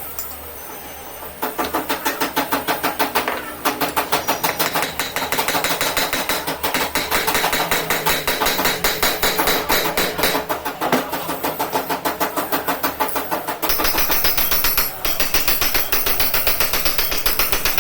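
A machine running with a rapid, regular knocking clatter, about five beats a second. It starts a second or so in and grows harsher and brighter near the end.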